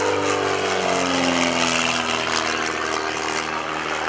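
Pitts S-1S aerobatic biplane's Lycoming engine and propeller running at full power, the pitch falling slowly as it passes, then holding steady.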